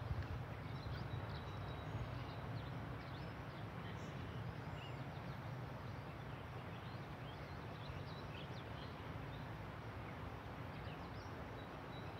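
Quiet outdoor ambience: a steady low rumble with faint, scattered bird chirps.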